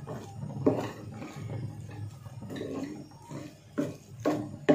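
Wooden spoon stirring and scraping sautéed vegetables in a steel pot, with several sharp knocks of the spoon against the pot, over a low steady rumble.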